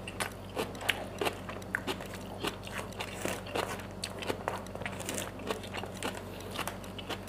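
Close-up eating sounds: chewing a mouthful of siomay fish dumpling with cabbage, along with a metal spoon scraping and clicking in a styrofoam food box. Many small irregular clicks and smacks, several a second.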